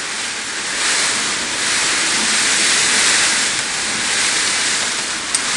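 Heavy storm rain and wind as a steady rushing hiss, swelling slightly about a second in. There is a single small click near the end.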